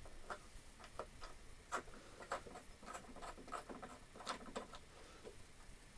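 Faint, scattered small clicks and light scraping of a steel feed-handle lever being screwed into the hub of a Scheppach bench drill.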